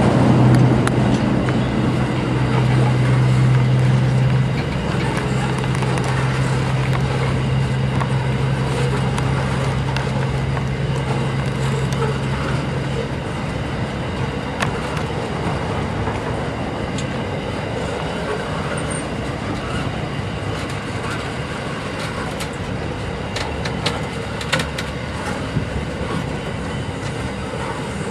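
Grain hopper wagons of a long freight train rolling past on the rails: a continuous rumble of wheels on track. A low steady hum fades out about halfway through, and a few sharp clicks come near the end.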